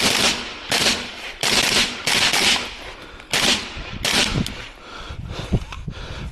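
Rifle shots fired in quick succession, about six in the first four seconds, each one sharp and echoing. Smaller knocks follow near the end.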